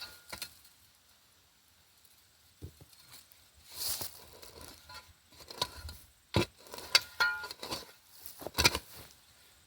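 Irregular scrapes, rustles and a few sharp knocks of potatoes being dug out of the soil and handled.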